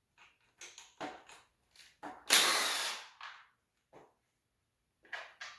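Power tool run in one short burst about two seconds in to undo the bolts of the shield on a Honda B18B1 cylinder head, with light knocks of tool and metal parts around it and two clicks near the end.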